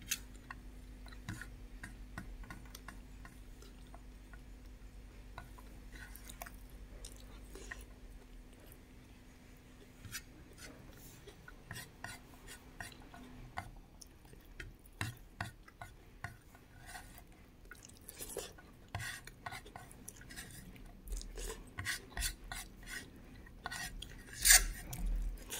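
Fingers mixing and scooping rice and chickpea curry on a plate: scattered small clicks and scrapes against the plate, busier toward the end, with the loudest one near the end.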